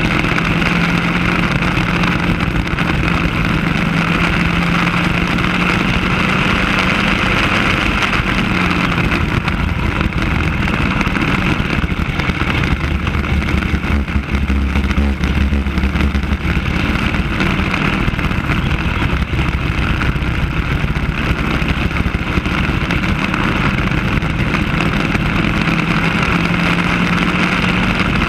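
Racing kart's single-cylinder engine running at steady speed under load, heard from on board; its pitch sags slightly about a third of the way through and climbs back near the end.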